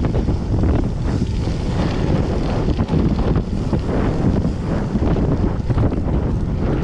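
Wind buffeting the microphone of a bicycle-mounted action camera while riding, a loud steady rumble, with scattered ticks and rattles from the bike over rough ground.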